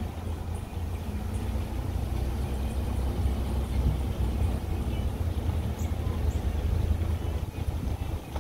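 Steady low rumble of a car driving slowly, road and engine noise heard from inside the cabin.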